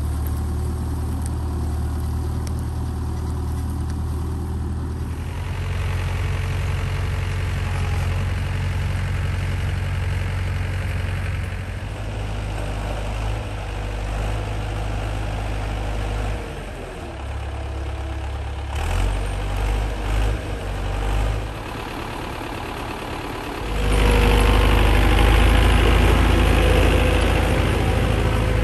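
David Brown 950 tractor's four-cylinder engine running steadily while it skids logs, much louder in the last few seconds as the tractor works close by.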